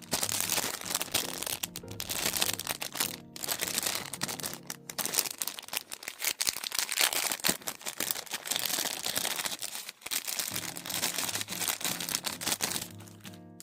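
Packaging being crinkled and torn open by hand, a loud, continuous crackle with a few brief pauses, easing off near the end.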